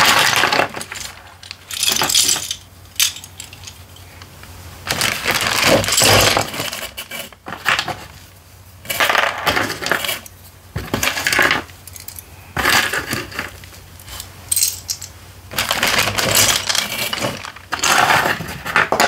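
Loose plastic Lego bricks clattering as they are rummaged by hand and dropped into a cardboard box, in irregular bursts with short pauses between.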